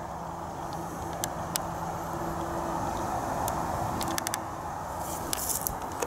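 Strong wind blowing past, a steady rushing noise, with a faint low hum that fades out about halfway through and a few light clicks.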